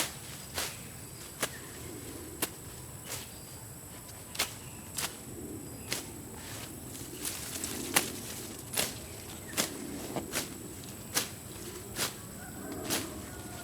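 A series of sharp, irregular clicks or slaps, roughly one a second, the loudest about two-thirds of the way through, over a steady high-pitched tone in the background.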